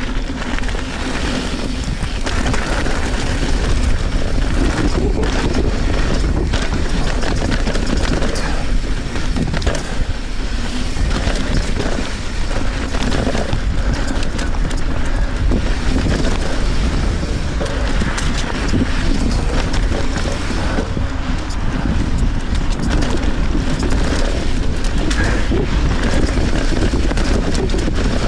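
A Trek Fuel EX 7 mountain bike ridden fast on sandy singletrack: wind buffets the action-camera microphone as a steady low rumble, over tyre noise and frequent rattles and clicks from the bike on rough ground.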